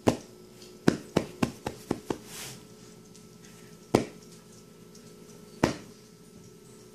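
A hand patting a blanket beside a lying dog: a quick run of about seven sharp pats in the first two seconds, then two more single pats about four and five and a half seconds in.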